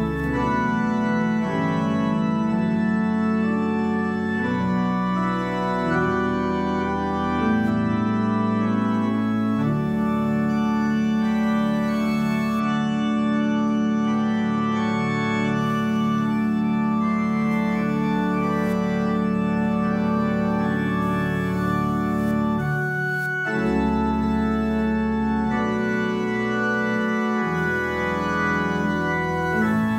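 Church organ playing sustained chords over held bass notes, with a brief break about 23 seconds in.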